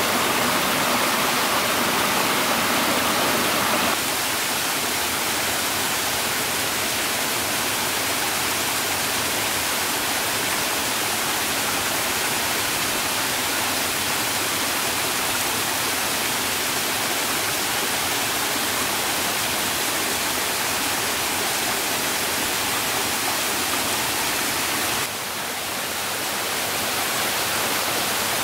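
Steady rushing noise of water. It changes abruptly about four seconds in, drops suddenly near the end, then builds back up.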